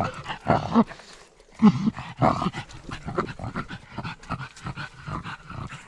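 A pug breathing hard and noisily right next to the microphone as she runs: a quick, irregular string of short, rough, pitched breaths and grunts.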